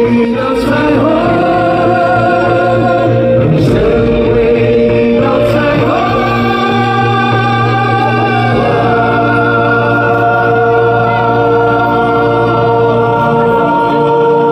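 Live pop-rock band music with male vocals holding long notes with vibrato, amplified through a concert sound system.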